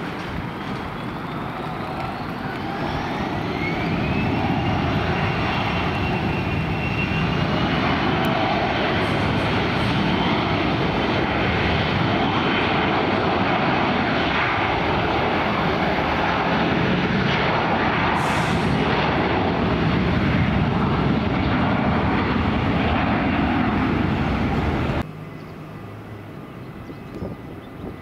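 Jet airliner's engines spooling up to high power. A whine rises in pitch over the first few seconds, then holds steady above a loud, even roar. The sound cuts off abruptly about three seconds before the end.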